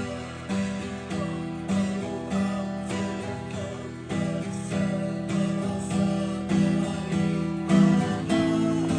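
Guitar chords strummed in a steady, brisk rhythm, the chord changing every second or so.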